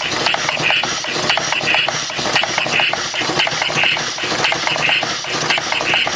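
Homemade compressed-air engine, converted from a lawnmower engine, running slowly: a regular hissing beat of exhaust air about twice a second over steady clicking from its moving parts.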